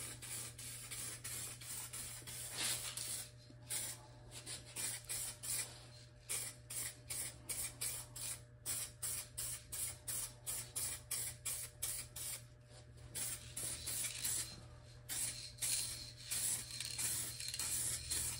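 Aerosol spray can of acrylic enamel paint hissing as a coat is sprayed on, in many short bursts of about two a second, with longer continuous passes at the start and near the end.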